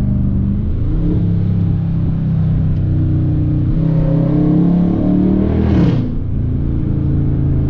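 Dodge Charger R/T's 5.7 Hemi V8, heard from inside the cabin, accelerating with its active exhaust valve held open in track mode. The revs climb, break at a gear change about four seconds in, and climb again before falling off near six seconds.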